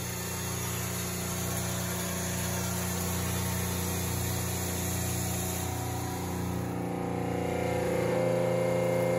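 Household equipment running with a steady low mechanical hum and hiss. About seven seconds in, the hiss fades and a steadier, higher hum comes up and grows slightly louder.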